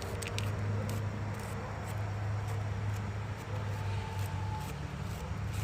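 A steady low mechanical hum with faint scattered clicks and crackles over it.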